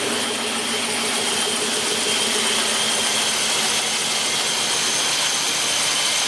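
Chevrolet Silverado pickup's engine running steadily with a thin high whine over it, after a new battery has been fitted to get it going.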